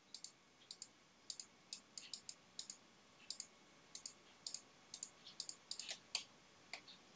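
Faint computer mouse clicks in an irregular run, many in quick pairs, a couple of clicks a second, as weight-paint strokes are dabbed on in Blender.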